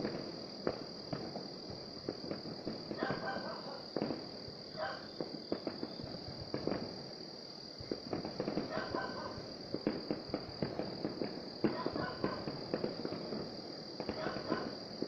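Distant aerial fireworks going off in irregular sharp pops and crackles, with several close together in places. A steady high-pitched tone runs underneath.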